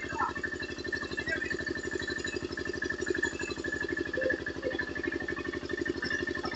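An engine running steadily, with an even fast thudding of about a dozen beats a second and a steady high whine above it.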